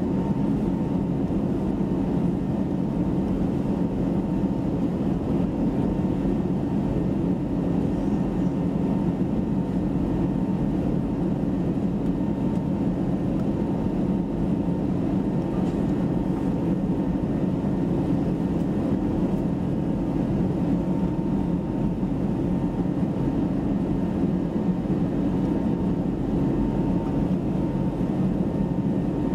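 Steady cabin drone inside an Airbus A320neo airliner: a low engine and airflow rumble with a faint steady hum, holding even throughout.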